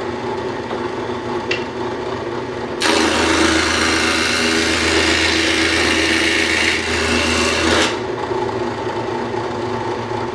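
Drill press running with a Wagner safety planer spinning in its chuck. From about three seconds in, for about five seconds, the cutter planes a wooden board, giving a loud shaving noise over the motor's hum, which then carries on alone.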